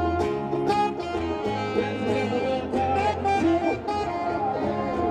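Live band music with a steady beat.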